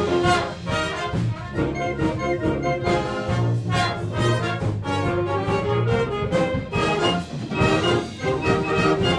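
A concert band of woodwinds, brass and percussion playing a piece together, with repeated sharp accented chords.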